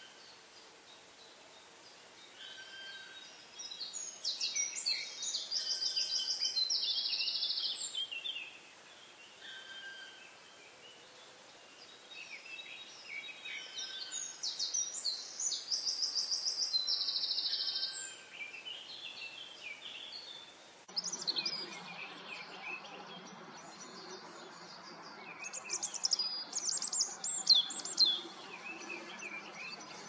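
Woodland birdsong. A songbird sings two long, high phrases with a trill, about nine seconds apart. About two-thirds of the way through the sound changes abruptly, and busier high chirping follows, loudest near the end.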